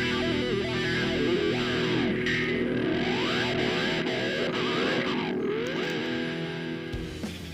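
Background rock music led by a distorted electric guitar playing bending lead lines over sustained chords. The music changes character near the end.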